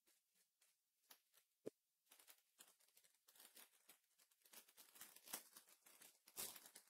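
Near silence with faint, scattered rustles and clicks of trading cards and pack wrappers being handled, a few slightly louder ticks about two seconds in and again near the end.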